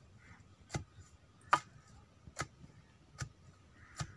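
Pestle pounding herb leaves in a mortar: five sharp knocks, about one every 0.8 seconds.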